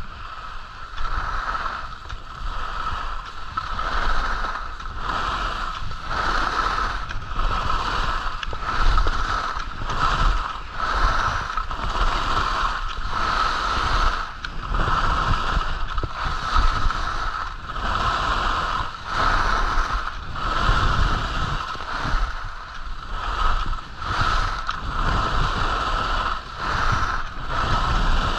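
Skis scraping and carving on groomed snow, the sound swelling and easing with each turn about once a second, with wind rumbling on the microphone.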